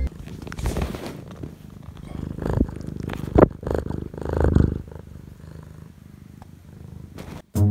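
Scottish Fold cat purring right up against the microphone, a low rumble with a few louder swells.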